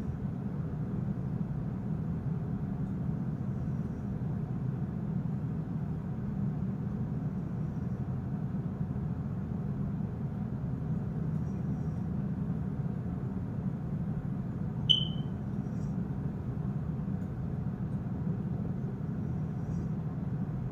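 A person snoring in her sleep with a low, purring, cat-like rattle, steady and even. A brief high chirp sounds once, about 15 seconds in.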